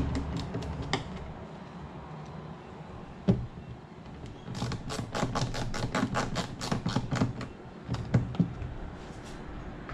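Ratcheting hand screwdriver driving screws into a plastic kayak grommet block: a few knocks, then a quick, even run of clicks about six a second for nearly three seconds in the middle, and two more knocks near the end.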